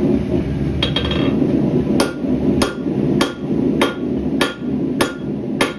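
Hand hammer striking hot rebar on an anvil to flatten it into a billet for a knife blade. Two light taps about a second in, then evenly paced ringing blows about every 0.6 seconds over a steady low roar.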